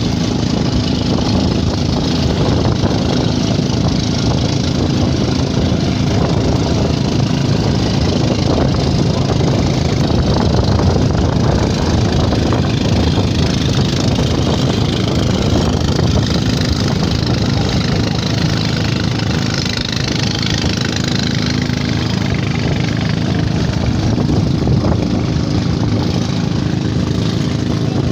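Motorized outrigger boat's engine running steadily while under way, with water rushing and splashing along the hull.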